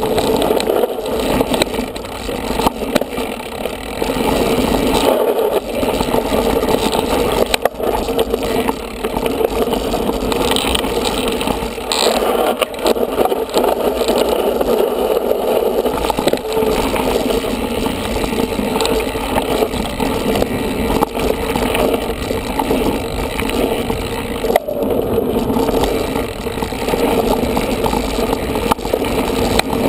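Mountain bike riding fast down a dirt trail: a steady rush of tyre and wind noise with rattling from the bike, and a couple of sharp knocks over bumps.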